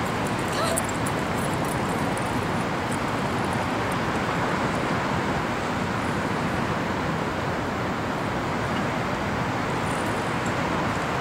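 Steady rushing background noise of a downtown outdoor space, even in level and with no distinct events standing out.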